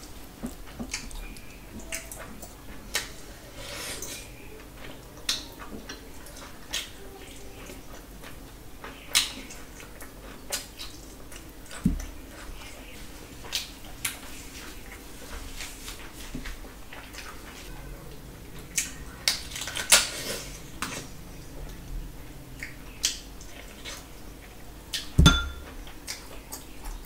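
Close-miked hand-eating sounds: fingers mixing rice and curry on a steel plate and tearing fried chicken, with scattered irregular clicks and knocks against the plate and chewing. A heavier thump near the end.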